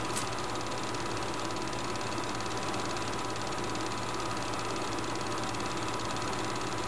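Steady machine-like hum with hiss, unchanging throughout.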